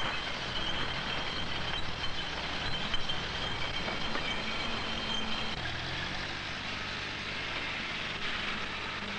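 Front-end loader engine running as its bucket works a pile of glass bottles, with a high steady whine that stops about halfway through and a shift in the engine note soon after.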